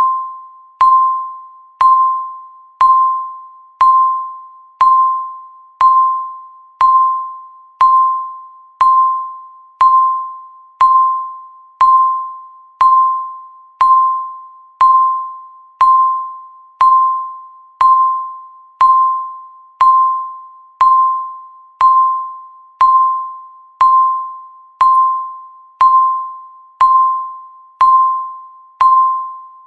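Countdown timer beeping once a second: a single pure electronic tone each time, starting sharply and fading away before the next.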